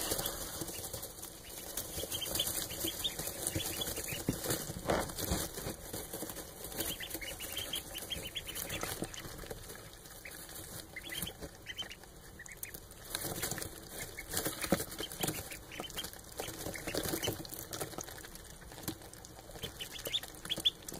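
Indian Runner ducklings peeping and shuffling about in straw bedding, a steady mix of small rustles and crackles with short high peeps.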